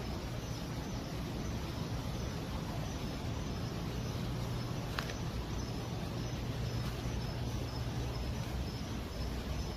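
Steady hum and hiss of conservatory ventilation machinery. A faint high chirp repeats steadily over it, and there is one soft click about halfway through.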